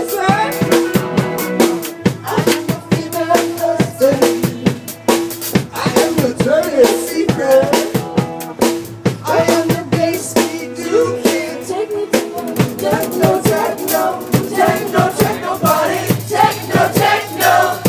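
Live rock band playing: a drum-kit beat with guitar and singing.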